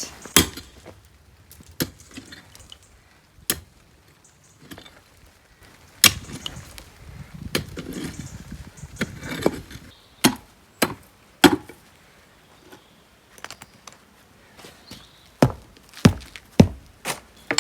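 Hand tool knocking and levering at a stone step set in the ground to work it loose: about a dozen sharp knocks at irregular intervals, several close together near the end, with scraping in between.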